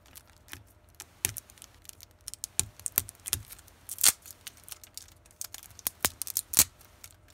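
Clear plastic wrap on a stack of trading cards being picked at with fingernails and torn open: irregular crackles and sharp clicks of crinkling plastic.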